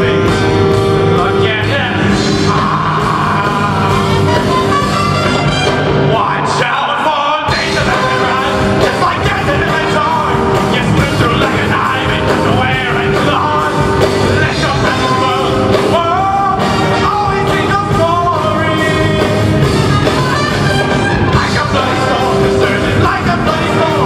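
Live jazz fusion band playing loudly: electric bass, electric guitar and drum kit with saxophone and trumpet. There is a short break about seven seconds in.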